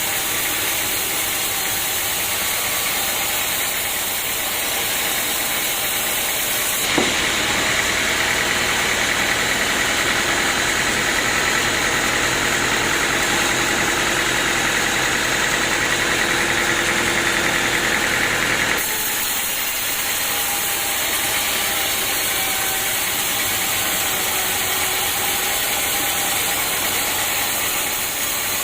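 Sawmill engine running steadily. For about twelve seconds in the middle it is louder, with a higher whine.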